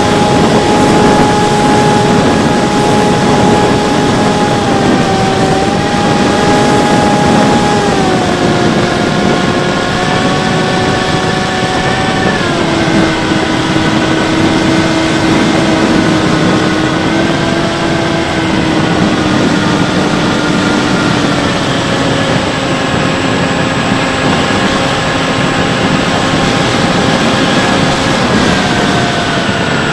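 Bixler 3 RC plane's electric motor and pusher propeller heard from an onboard camera: a steady whine that steps down in pitch a few times as the throttle is eased, then rises again near the end, over a rush of air.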